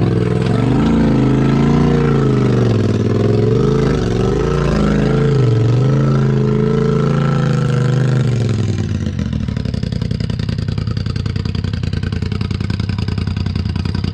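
Polaris RZR Turbo four-seater's turbocharged twin-cylinder engine revving up and down as the machine crawls up and out over rock. About eight seconds in, it drops back and runs steadily at low revs.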